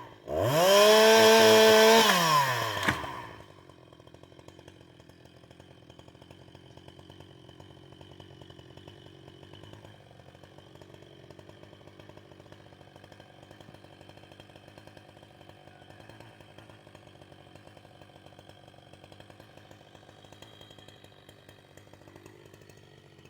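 Two-stroke chainsaw revved up hard, held at high revs for about two seconds, then let back down and dropping out about three seconds in. After that only a faint steady hum.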